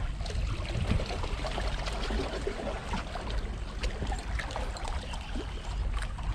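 Seawater lapping and trickling among breakwater rocks, a steady wash with many small splashing ticks, over a low rumble of wind on the microphone.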